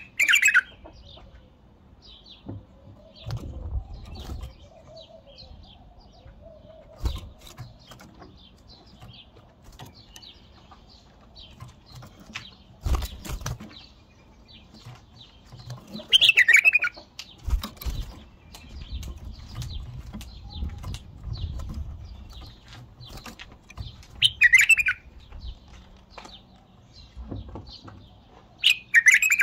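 White-eared bulbul singing four short, loud phrases, spaced apart, near the start, about halfway, at about three quarters and at the very end. Between them come low thumps and rustles of its wings flapping and its feet landing on the cage perches.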